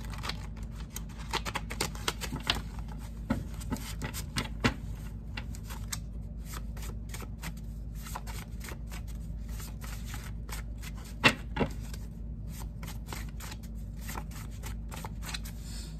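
A deck of cards being shuffled by hand: a run of irregular soft flicks and taps, densest in the first few seconds, with two sharper clicks a little past the middle, over a steady low hum.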